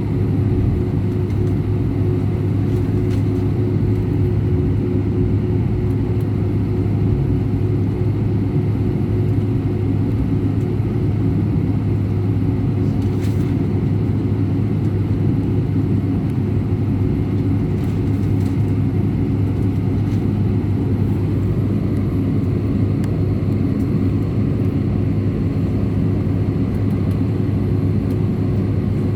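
Steady cabin noise inside an Airbus A319 airliner: the jet engines and airflow make an even drone with a strong low hum and a few steady tones, unchanging in level.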